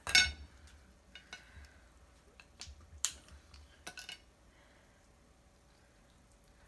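Kitchen scissors and snow crab shell snapping and clicking as the crab legs are cut and picked apart. A loud sharp snap comes right at the start, then a handful of fainter clicks over the next four seconds.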